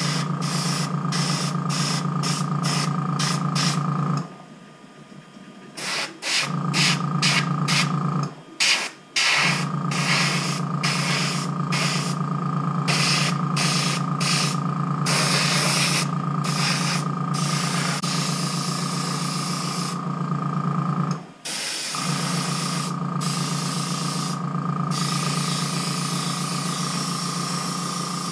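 Airbrush spraying paint in many short hissing puffs and some longer stretches, over the steady hum of its small air compressor. The compressor cuts out about four seconds in and restarts about two seconds later, drops out briefly near eight and a half seconds, and again about twenty-one seconds in.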